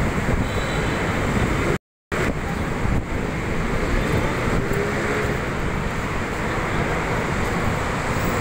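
Steady road traffic noise from cars, trucks and buses passing on a busy multi-lane road below. The sound cuts out completely for a moment about two seconds in.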